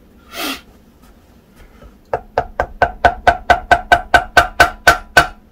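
Rubber mallet knocking rapidly on the selector housing of a Ford Consul Mk1 three-speed gearbox, about fifteen hollow knocks at roughly five a second, starting about two seconds in. The knocks are breaking the housing's gasket seal.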